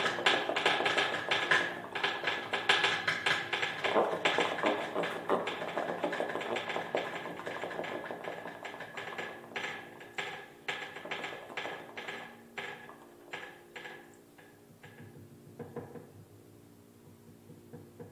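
Free improvisation for trombone and piano: a dense run of sharp, percussive strikes over low ringing tones, gradually thinning out and fading, with a last few strikes about three-quarters of the way through.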